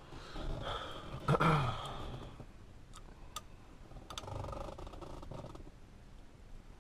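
Handling noises of small steering-wheel screws and parts being picked up and fitted by hand: a louder rough scrape about a second and a half in, a couple of sharp metallic clicks near the middle, then more rustling and scraping.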